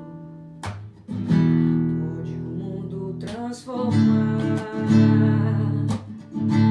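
Nylon-string acoustic guitar strummed in chords, with a woman singing along.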